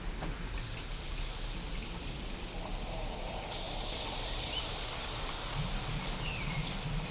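Steady rain from a real storm recording, reworked with sound-design effects to sound alien. A few faint gliding, warbling tones come in over it in the second half.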